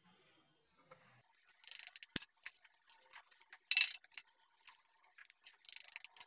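Eggs being cracked against the rim of a glass mixing bowl: a scatter of sharp taps and shell crackles, the sharpest tap about two seconds in, as the eggs go into the bowl.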